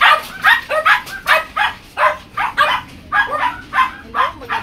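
A dog barking over and over, about three barks a second without a pause.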